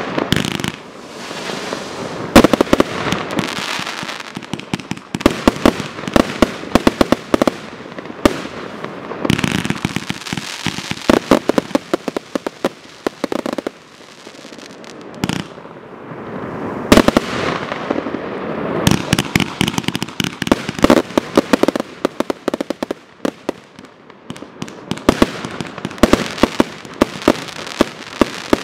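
Zoomka/MC Fireworks 235-shot consumer fireworks cake firing a continuous barrage: shells launching and bursting in quick succession, with rapid clusters of sharp reports. The volley thins briefly about halfway through and again in the last third.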